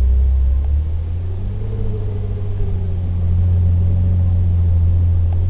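Jeep TJ engine running with a steady low drone, easing off about a second in and building again.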